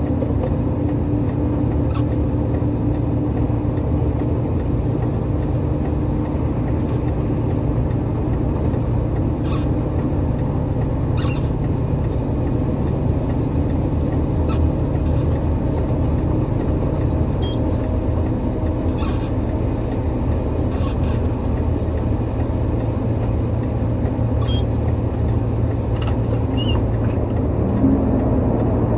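Heavy vehicle engine running steadily at idle, its note dropping slightly about two-thirds of the way through and rising briefly as it revs near the end, with a few light clicks.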